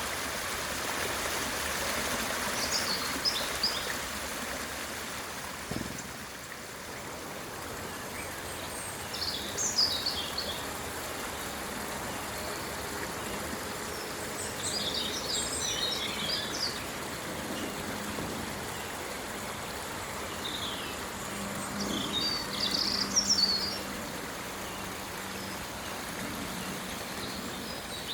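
Small birds chirping in short twittering bursts every few seconds over a steady rushing background noise.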